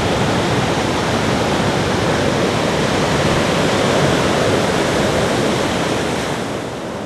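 Ocean surf on a beach: a steady, dense rushing wash of breaking waves, which begins to fade out near the end.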